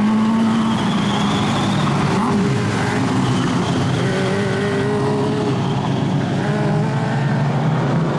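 A pack of GP midget speedway cars running together, several engine notes at once rising and falling as the drivers accelerate and ease off.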